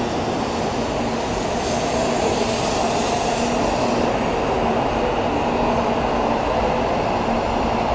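Tokaido Shinkansen Kodama train pulling slowly out of the platform: a steady running noise of its motors and wheels, with a faint low hum that comes in about halfway through.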